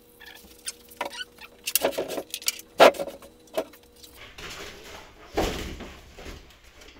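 Handling noise around a PA speaker cabinet being unpacked: scattered clicks and knocks, then a stretch of rustling with one heavier thump about five and a half seconds in.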